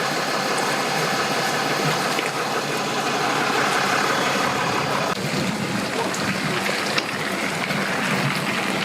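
Boat engine running steadily close by, its note shifting about five seconds in.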